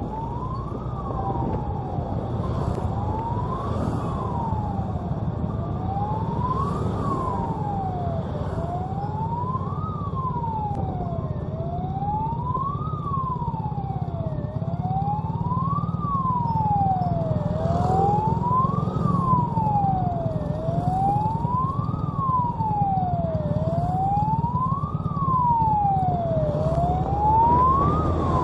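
An electronic wail siren sweeping evenly up and down, one rise and fall about every three seconds, over the steady running of motorcycle engines and road noise.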